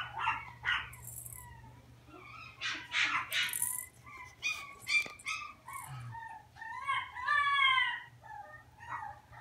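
Chihuahua puppies whimpering and yipping at play, with one longer wavering whine about two seconds before the end.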